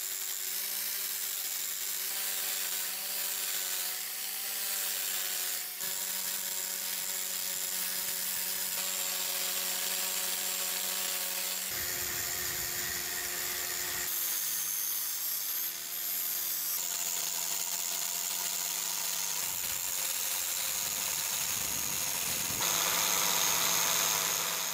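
Handheld rotary polisher spinning a foam polishing pad against a steel hammer head: a steady motor whine over a rubbing hiss. The motor's pitch steps a little lower about twelve seconds in and shifts again a few seconds later.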